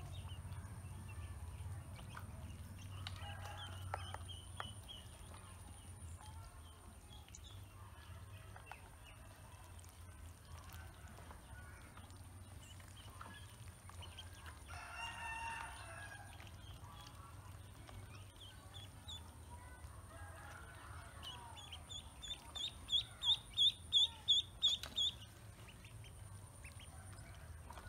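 Baby poultry peeping: a faint run of high peeps early, then a rapid run of about ten loud, evenly spaced peeps near the end. A rooster crows once about halfway through.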